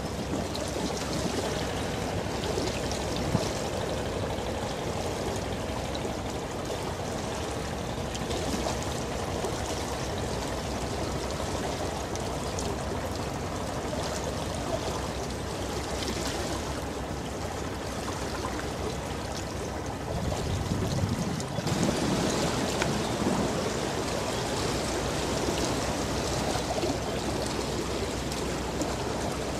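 Steady rushing and trickling of water from a passing container ship's bow wave and wash. A low rumble swells about twenty seconds in, and the sound changes abruptly and grows a little louder soon after.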